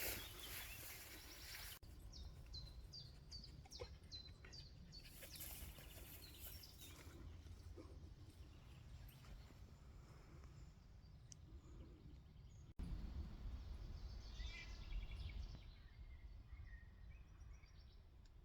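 Songbirds in a forest: one bird sings a run of about eight quick, high, falling notes a couple of seconds in, and another short phrase follows later. A low rumble sits underneath.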